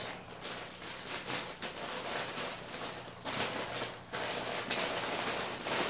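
Crumpled packing paper rustling and crackling as hands unwrap a toy train piece, in a steady run of small crinkles.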